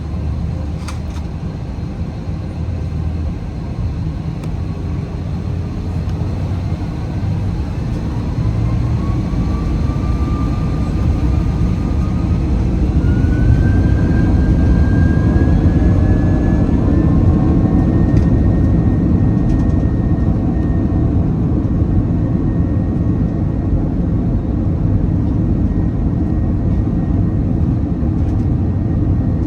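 Jet airliner's engines heard from inside the cabin, spooling up for takeoff: a whine rises in pitch over about ten seconds while the low rumble grows louder, then both hold steady at full thrust.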